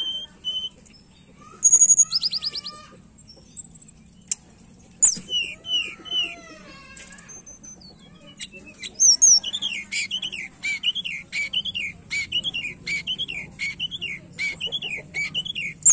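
Tledekan gunung (a blue flycatcher) singing. It gives scattered short whistles and glides at first, then from about 9 s a steady run of repeated rising-and-falling whistled notes, about two a second.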